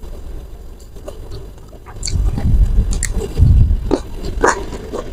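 Close-miked chewing of food in a person's mouth: quieter for the first two seconds, then louder chewing with several sharp clicks and crunches.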